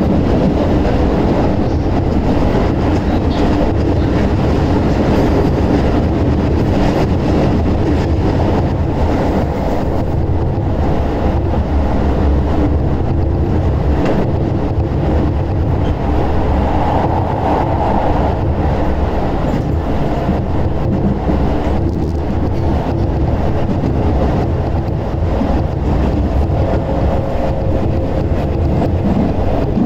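Keisei 3700 series train running at speed through a subway tunnel, heard from inside the car: a loud, steady rumble of wheels and running gear on the track.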